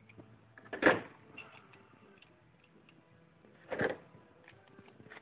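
Metal hand tools and steel parts being handled and set down on a workbench: two louder clunks, about a second in and just before four seconds, with light clicks of handling between them.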